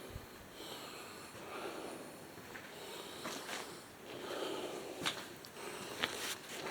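A person breathing and sniffing close to the microphone, in soft swells every second or so, with two sharp clicks about five and six seconds in.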